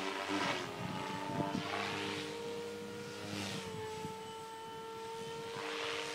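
SAB Goblin 500 electric radio-controlled helicopter in flight: its motor and rotor give a steady whine, with surging whooshes from the blades every second or two as it manoeuvres.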